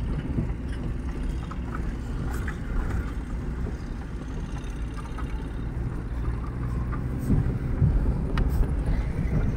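A car driving on a rough unpaved road, heard from inside the cabin: a steady low engine and road rumble with a few short knocks and rattles from the bumpy ride.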